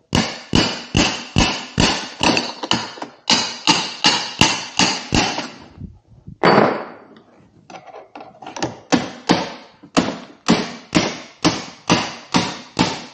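Hammer blows driving the pivot pin out of an Inmotion V11 electric unicycle's foot pedal, a steady run of sharp taps at about three to four a second, each with a short ring. The tapping stops for a moment about halfway through, with a brief scraping noise, then starts again.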